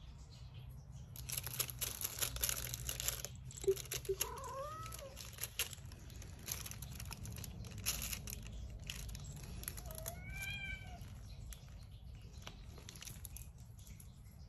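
A domestic cat meows twice, two short arching calls about four seconds and about ten seconds in. A quick clatter of small clicks comes in the first few seconds.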